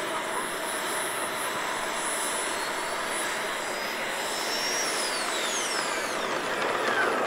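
Electric ducted fan of a model jet (JP 90 mm metal fan on 6S) whining as the jet taxis. The whine climbs slightly in pitch, then falls steadily over the last two or three seconds.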